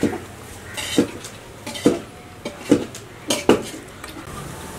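Stainless steel serving plate clattering and knocking as paper bowls of rice are set on and lifted off it: a series of short clanks, roughly one a second.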